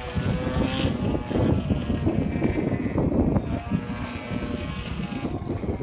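Two-stroke gasoline engine and propeller of a 3D aerobatic RC airplane running at high revs in flight. Its pitch climbs at first and then holds fairly steady.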